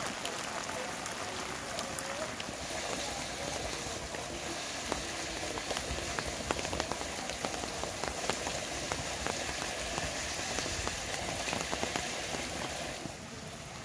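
Heavy rain falling steadily, with many sharp drop hits close by; the hiss eases slightly near the end.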